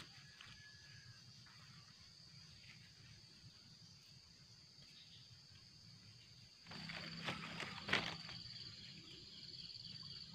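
Steady high-pitched drone of insects, with faint footsteps on dry leaf litter at the start. About two-thirds of the way in, louder rustling begins, with one sharp click, the loudest sound.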